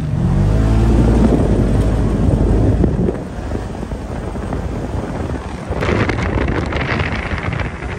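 Off-road vehicle engine running over the dunes, loudest in the first few seconds, with wind buffeting the microphone. A harsher rush of wind noise comes in about six seconds in.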